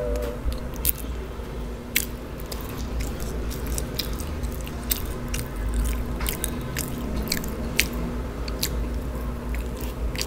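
Close-miked chewing of fried fast food, with scattered sharp wet mouth clicks and light crunches.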